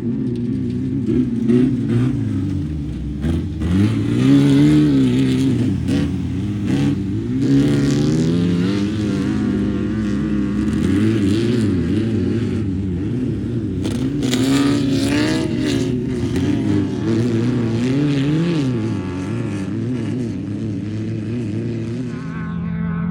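Off-road race vehicle engines revving up and down again and again, with louder rushes of noise as a vehicle goes by close, about four seconds in and again around fourteen seconds in.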